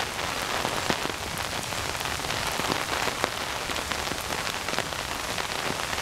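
Heavy rain falling steadily: an even hiss dotted with many separate drop ticks.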